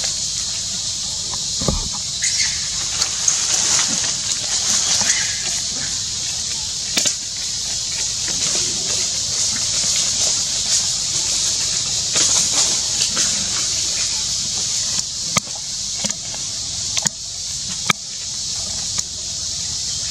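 A steady, high-pitched buzzing hiss of a forest insect chorus, with scattered clicks and rustles of dry leaves as monkeys move over the leaf litter, and a single low thump about two seconds in.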